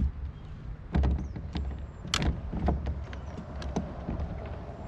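Knocks and clicks of gear being handled aboard a fishing kayak, over a low rumble of wind on the microphone.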